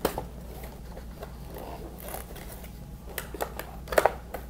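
Cardboard toy packaging being opened by hand: the box end worked loose and the inner cardboard tray pulled out, with scattered scrapes and sharp clicks. The loudest clicks come about three to four seconds in.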